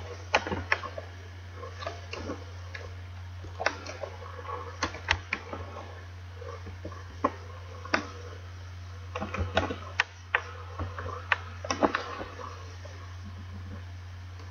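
Computer keyboard typing: scattered, irregular key clicks, a few at a time with pauses between, over a steady low hum.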